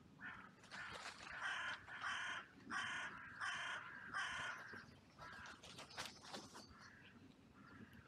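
Carrion crow cawing: a run of about half a dozen harsh caws in quick succession, each under half a second, followed by fainter caws in the second half.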